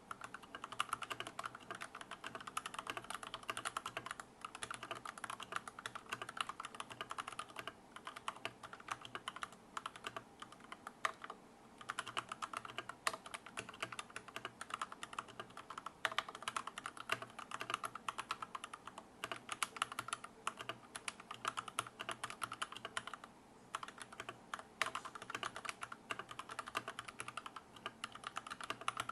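Fast typing on a custom tenkeyless mechanical keyboard with an aluminium plate and lubed Gateron Yellow linear switches: a dense run of keystroke clacks, broken by a few short pauses.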